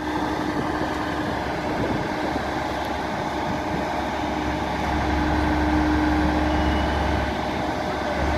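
A heavy diesel engine running steadily under load, with a constant low hum that grows a little louder about five seconds in.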